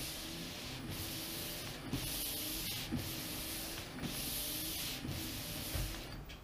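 Subaru Impreza windshield wipers sweeping a wet windshield: rubber blades swishing across the glass over a faint wiper-motor hum, with a brief pause at the end of each stroke about once a second. The newly installed wiper linkage is working through its full sweep.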